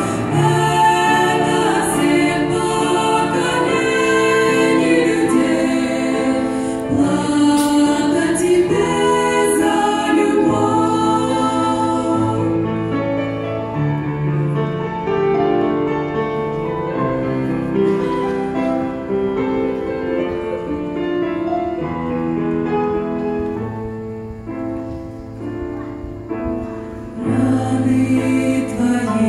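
Three women singing a Russian-language gospel song in close harmony through microphones and the church sound system, over an instrumental accompaniment with sustained low bass notes. The music dips softer a few seconds before the end, then swells again.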